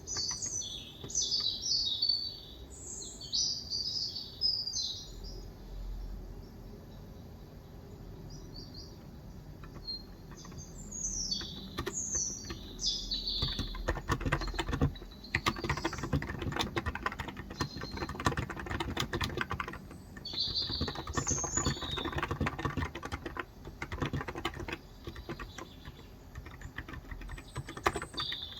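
Birds chirping in quick high bursts, loudest in the first few seconds and again midway and near the end. From about halfway, steady typing on a Cox Endeavour electro-capacitive (35 g) tenkeyless keyboard, a rapid run of soft key clicks that lasts most of the second half.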